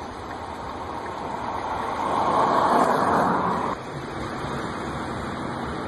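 A road vehicle's noise swells louder over about three seconds, then cuts off abruptly near the middle, leaving a steady rushing noise.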